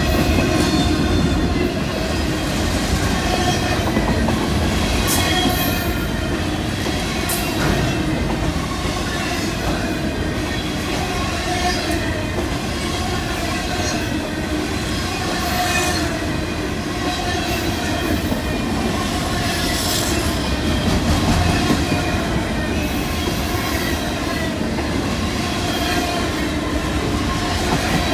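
Freight train of intermodal well cars rolling past: a steady rumble and clatter of steel wheels on the rails, with high wheel squeal and a few sharp clanks.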